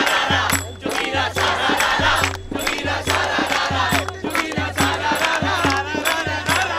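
A crowd of protesters singing together and clapping their hands in a steady rhythm.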